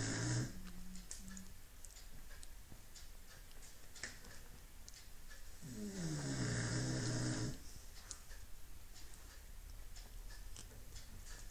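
Dog snoring in its sleep: long, pitched snores about six seconds apart, one ending just as the sound begins and another lasting about a second and a half from about six seconds in, with quieter stretches between.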